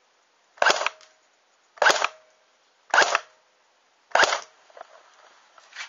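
Classic Army P90 airsoft electric gun firing single shots into a chronograph: four short, sharp shots about a second apart. These are test shots for a muzzle-velocity reading of about 330 fps.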